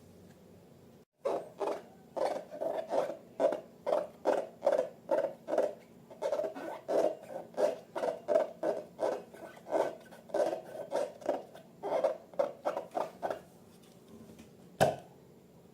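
Slime being squeezed and kneaded by hand, making a steady run of squelches about three a second, with a sharp click near the end.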